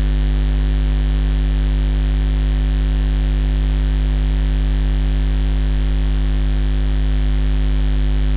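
Steady electrical mains hum with hiss from the recording chain, unchanging throughout.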